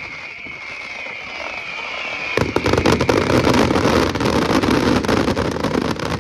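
Fireworks: a high whistle for the first couple of seconds, then, about two and a half seconds in, a sudden loud, dense crackling and popping barrage that keeps going.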